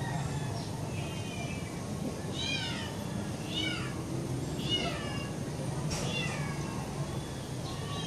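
A cat meowing again and again, about once a second, each meow falling in pitch, over a steady low background hum.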